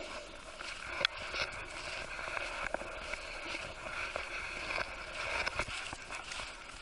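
Footsteps crunching on a thin layer of snow, irregular soft crunches with a sharper knock about a second in, over a steady background noise.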